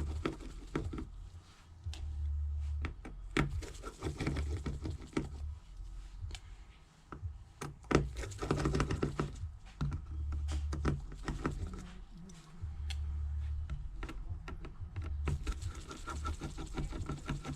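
Small clicks and taps of a precision screwdriver working the tiny screws out of a smartphone's frame and the screws being set down, with a low hum that comes and goes in stretches of about a second.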